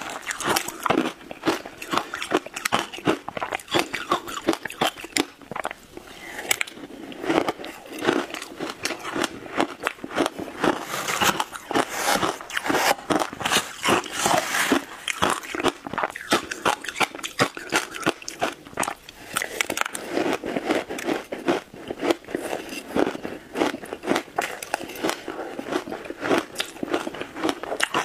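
Shaved ice being crunched and chewed close to a clip-on microphone: a dense, continuous run of crisp crunches.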